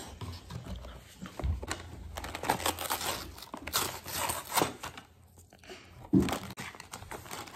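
Cardboard box and packaging of a LEGO set being opened by hand: irregular crinkling, rustling and tearing with scattered small clicks, and one short louder bump about six seconds in.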